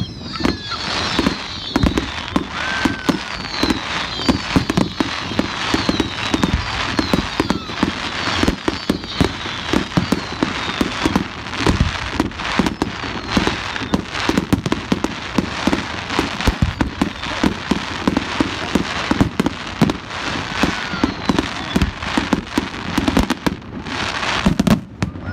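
Fireworks display: aerial shells bursting in quick succession, a dense, continuous run of bangs over crackling. A few falling whistles sound in the first few seconds.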